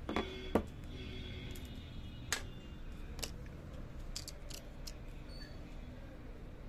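Handling noise on a workbench: two sharp knocks close together at the start, then scattered light clicks and ticks as a phone, its metal skin plate and small skin pieces are picked up and set down, over a steady low hum.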